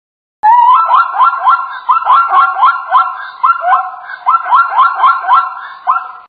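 Zebra calling: a run of short, yelping barks, each rising in pitch, about four a second, starting after a brief silence.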